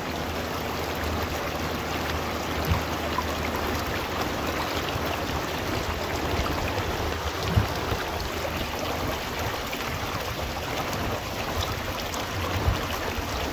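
A creek rushing steadily, with a couple of faint knocks.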